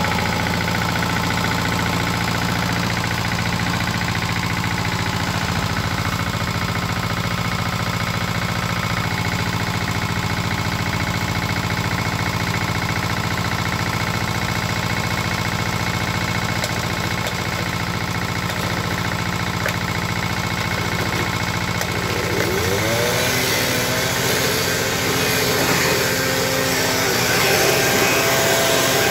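The 359 cc, 8 hp Lombardini single-cylinder engine of a Valpadana tiller idles steadily in neutral. About 22 seconds in, a second small engine starts with a rising whine and runs on alongside it.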